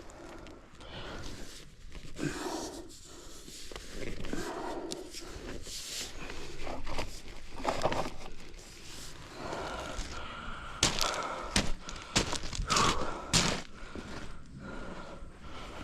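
Irregular thuds, knocks and scuffs, like footsteps and hand work on a job site.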